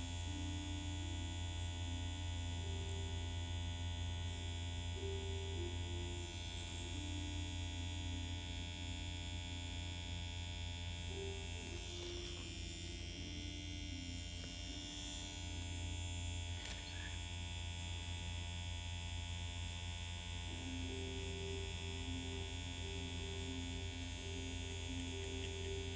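Permanent-makeup machine running with a steady low electric hum while brow strokes are worked in; soft music plays faintly underneath.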